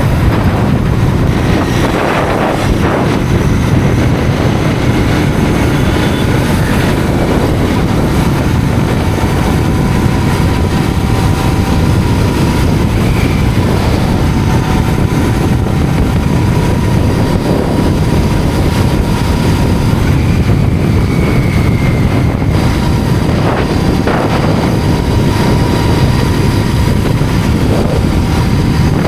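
Royal Enfield GT 650's 648 cc parallel-twin engine running steadily at road speed, mixed with heavy wind rush, heard through a helmet-mounted microphone.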